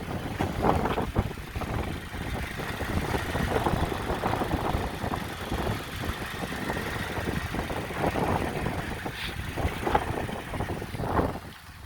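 Turbocharged Toyota 2TR-FE 2.7-litre four-cylinder petrol engine running, with its level rising and falling unevenly.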